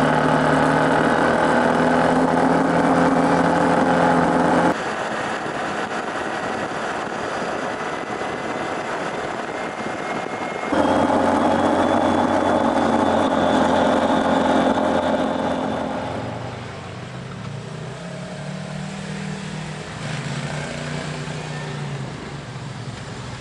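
Side-by-side off-road vehicle engines running while driving on dirt and gravel roads, a steady engine tone that changes abruptly about five and again about eleven seconds in. From about sixteen seconds a quieter engine wavers up and down in pitch at low speed.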